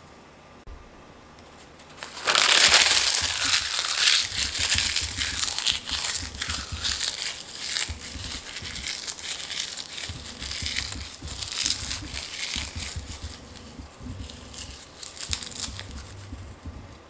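Crisp roasted nori seaweed sheets being torn and crumbled by hand, a dense crinkling crackle that starts about two seconds in and carries on as a long run of crackles.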